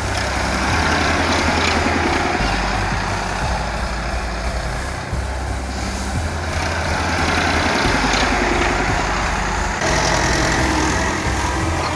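Tractor diesel engine running steadily as the tractor drives over a thick layer of rice straw, threshing the paddy under its wheels. The sound changes abruptly about ten seconds in, to another tractor doing the same.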